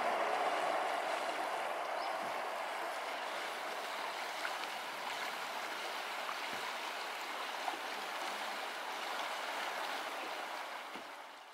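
Steady rushing of a fast, shallow mountain river running over stones. A louder band of noise dies away over the first couple of seconds, and the rush fades out at the very end.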